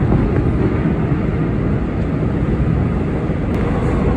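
Subway train running, heard from inside the carriage as a loud, steady rumble.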